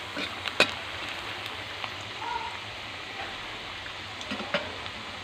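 Star-shaped potato fries deep-frying in hot oil in a metal wok, a steady sizzle like rain, with a few sharp clicks of the metal utensil against the wok, the loudest about half a second in and another near the end.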